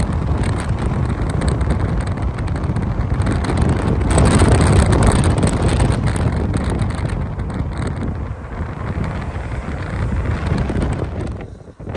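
Heavy wind buffeting the microphone over a low rumble, swelling and easing; it dips away briefly near the end.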